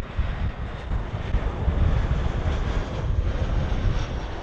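Airliner engines running loud, a steady rush with a deep rumble underneath.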